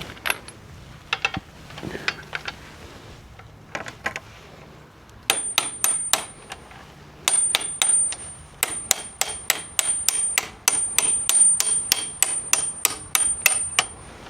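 Rapid metal-on-metal hammer taps driving the front wheel axle out of a Honda CBR650R, about three a second with a couple of short pauses, each strike ringing with a high metallic note. Before the tapping starts, a few scattered clicks and knocks of tools being handled.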